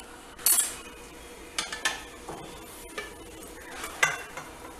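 A spoon scraping and knocking against cookware while working a thick, halwa-like mango and coconut mixture, with sharp knocks about half a second in, twice near two seconds, and again at three and four seconds.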